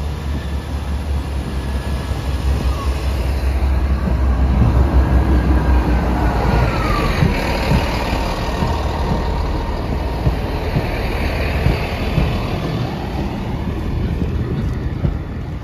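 Class 158 diesel multiple unit running past close by over a level crossing: a steady low engine drone that is loudest a few seconds in, with the wheels knocking over the rail joints and the crossing and a brief falling squeal about seven seconds in.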